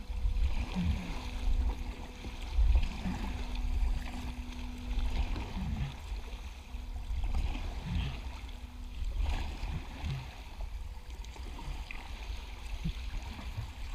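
Water sloshing and gurgling around a canoe as it moves along a river, over an uneven low rumble that swells and fades, with a faint steady hum through roughly the first two-thirds.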